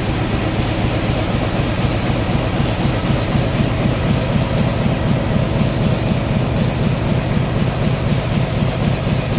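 Pinlong PL-GPFG-1224 flexo printer slotter die cutter running, with a steady, fast, even mechanical clatter as its feeder draws in corrugated board sheets.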